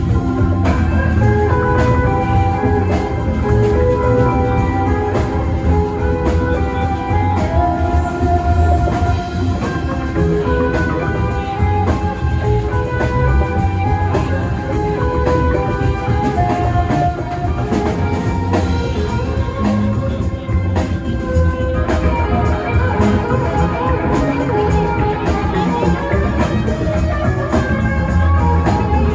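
Live rock band playing an instrumental passage: electric guitar lines over drum kit and bass.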